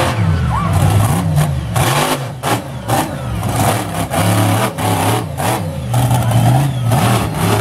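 Monster truck engine revving hard, its pitch rising and falling again and again as the truck accelerates, jumps and lands.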